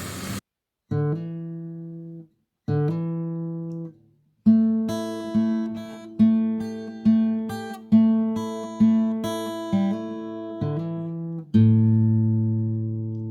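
Background guitar music: two plucked chords separated by short gaps of silence, then a steady run of plucked notes about one a second, ending on a held chord.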